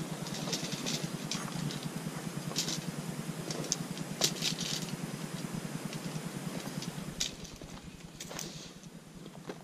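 Scattered light clicks and rattles of mountain-bike parts and gear being handled during assembly, over a steady low rumble; the clicks thin out near the end.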